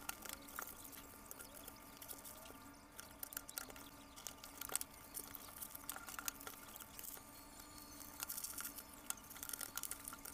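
Thin plastic bag wrapping crackling and rustling in irregular bursts as it is cut and pulled off a parcel by hand, over a faint steady hum.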